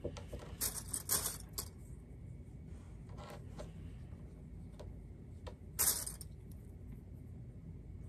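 Knit shirt fabric rustling as it is handled and pinched together by hand. There are short rustles about a second in, again around three seconds, and a louder one near six seconds.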